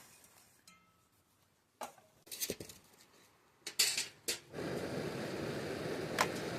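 Metal camp cookware clinking and clattering several times, then a steady rushing noise sets in about halfway through.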